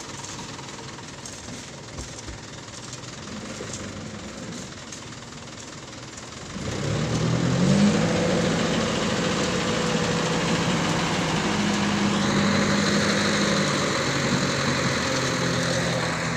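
A work vehicle's engine running quietly, then revving up sharply about six and a half seconds in and carrying on steadily louder. A high whine joins in about twelve seconds in.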